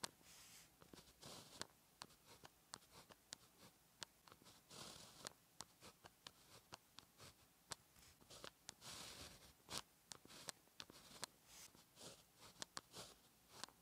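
Faint sound of a pen writing characters on paper: a run of short scratchy strokes broken by quick taps as the tip lands and lifts, with a few longer drawn strokes among them.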